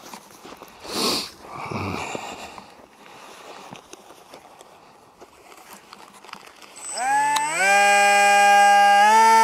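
Electric motor and fan of a model Su-27 jet spooling up to full power about seven seconds in. Its whine rises in steps and then holds steady. It sounds angry, and the pilot thinks it is a little out of balance. Before that there is only a short rush of noise about a second in over faint background.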